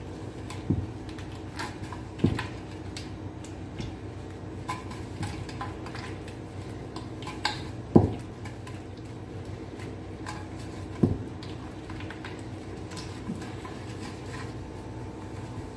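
Metal tube cake pan being greased by a gloved hand, with soft rubbing and scraping inside the pan. The pan clunks against the counter a few times as it is tilted and turned, loudest about eight seconds in.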